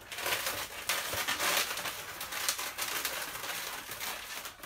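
Long latex twisting balloons squeaking and rubbing against each other and against the hands, with irregular squeaks throughout, as a balloon is rolled through a twisted joint.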